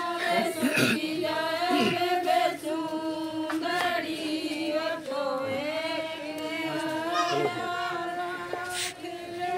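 A group of women singing a folk song together in unison, with long held notes that waver slightly.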